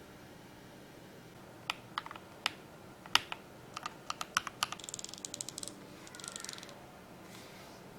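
Keys of a Darmoshark TOP75 mechanical keyboard being pressed: a few scattered clicks, then a quicker run of keystrokes about four seconds in, with a brief soft rustle just after.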